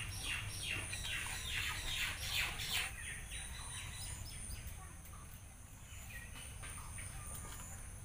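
Birds calling: a quick run of falling chirps, several a second, for about the first three seconds, then a few shorter, higher notes that fade out.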